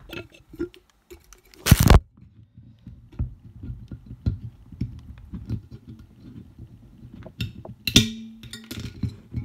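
Handling noise from the phone's microphone being covered and rubbed: a low rumble with many small scrapes and clicks. There is a loud rustling knock about two seconds in and another near the end.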